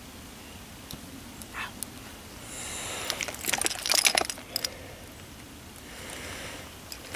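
Small metal gear scraping and clinking for about two seconds, with quick sharp clicks, starting a few seconds in; a fainter scrape follows near the end.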